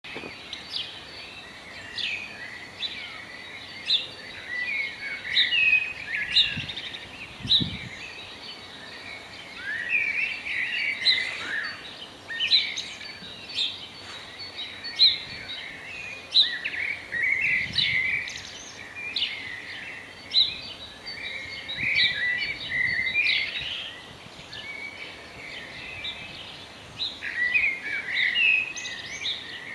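Songbirds singing, a string of short, quick chirping and trilling phrases repeating every second or two over a faint, even background noise.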